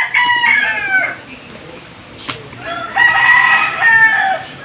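A rooster crowing twice. Each crow is a long call of about a second and a half that falls in pitch at the end, and there is a short click between them.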